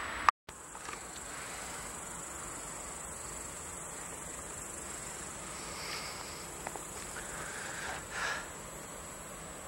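A sharp click and a brief dropout just after the start, then insects chirping steadily in an evening ambience, with a couple of faint brief sounds about six and eight seconds in.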